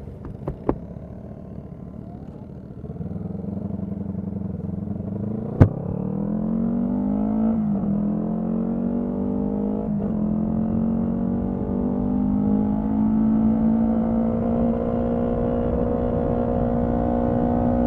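Honda CB125T's small parallel-twin engine under way, the throttle opening a few seconds in and the note climbing as the bike accelerates, with two brief dips at upshifts before it settles into a steady cruise. One sharp click about five and a half seconds in.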